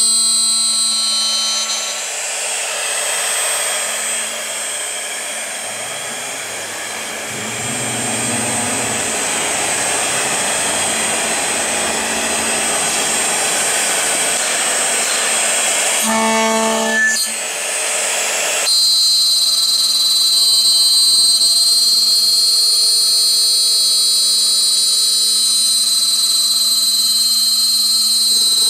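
Electric milling spindle of a CNC aluminium profile drilling and milling machine running with a steady high whine while its end mill cuts into an aluminium profile. For a long stretch in the middle, a broad rushing noise covers the whine, and the whine comes back clearly near the end.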